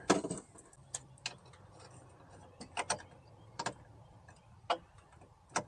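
Scattered light clicks and taps, about eight at irregular intervals, from a hand and socket tool working up inside a car door around the power window motor.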